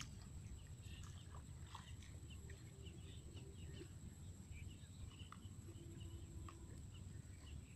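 Quiet outdoor ambience: a steady low rumble with faint, scattered chirps of birds in the distance.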